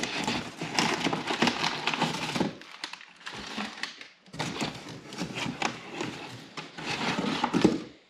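A shipping box and its packing being torn open by hand: crackling, tearing and rustling with many sharp clicks. Busy for the first couple of seconds, quieter for about two seconds, then busy again until it stops abruptly.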